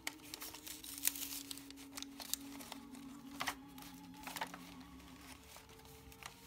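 Paper and glassine rustling and crinkling as a tag is slid into a glassine bag and the pages of a handmade paper junk journal are turned and smoothed, with sharp crinkles now and then. Faint record-player music plays underneath.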